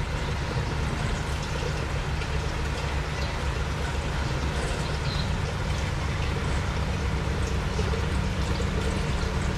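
Aquarium filter and aeration running: a steady trickle and bubbling of water over a low, even hum.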